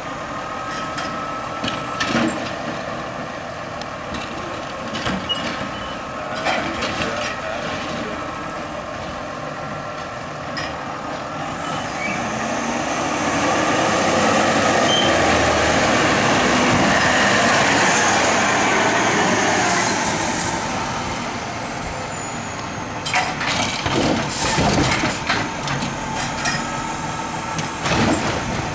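Automated side-loader garbage truck at work: the hydraulic arm lifting and emptying a cart, with sharp knocks and bangs as the cart is shaken and set down. The truck then drives up close and passes, loudest in the middle, with a thin high whine over the engine. A second cluster of knocks comes near the end.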